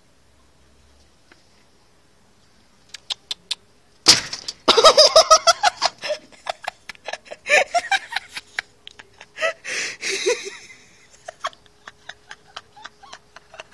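A sharp knock about four seconds in, followed by a person laughing hard in quick, rapid bursts for several seconds, tailing off into scattered light ticks.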